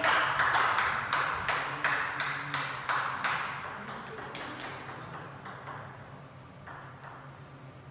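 Table tennis ball clicking on a hard surface: a run of sharp plastic ticks, about two or three a second, loud at first and growing steadily fainter over several seconds, with weaker, closer-spaced ticks later on.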